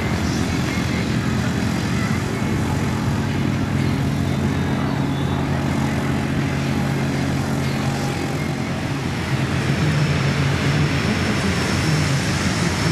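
Antonov An-2's nine-cylinder radial engine running steadily at low power with its propeller turning as the biplane taxis on grass. It grows slightly louder about ten seconds in.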